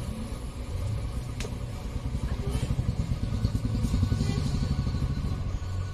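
A motor vehicle's engine running as a steady low rumble, pulsing quickly and evenly for a few seconds in the middle.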